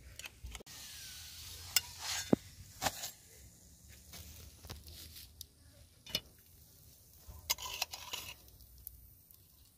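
Scattered light taps, clicks and rustles of chapatis being handled on a flat iron pan and in a steel bowl, with a faint sizzle in the first few seconds.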